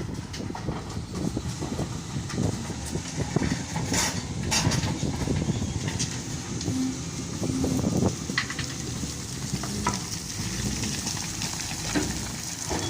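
SDLG wheel loader at work: a dense crackling rumble with scattered knocks and clicks, and brief steady tones rising out of it a few times in the second half.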